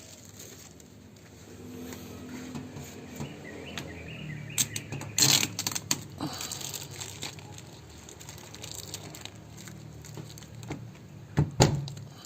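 Hands working on a washing machine's hose fittings: a cluster of sharp clicks and knocks of plastic parts about a third of the way in, and two more knocks near the end, over a faint low hum.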